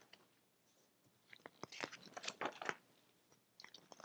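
Faint rustling and crinkling of paper calendar pages being handled and turned, in short crackly bursts from about a second in to near three seconds, with a few more near the end.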